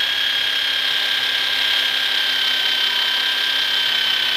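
Electric power tool motor running steadily at full speed, a constant high whine over a mechanical hum.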